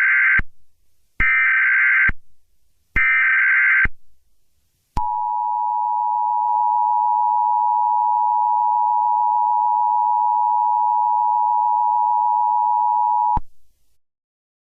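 Emergency Alert System tones: three short buzzy bursts of SAME header data, about a second apart, then the two-tone EAS attention signal held steady for about eight seconds before it cuts off suddenly.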